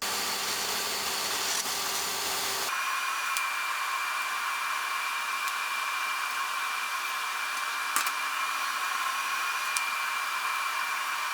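A metalworking power tool running with a steady, loud hissing rush. About three seconds in the sound changes abruptly to a thinner hiss with a steady whine, and there are a few sharp clicks.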